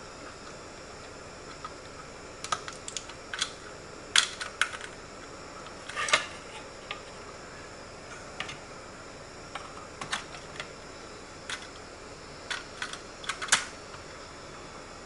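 Light, irregular clicks and taps of hands handling PC hardware as the i5-6400 processor is freed from its motherboard socket and lifted out, over a faint steady hiss.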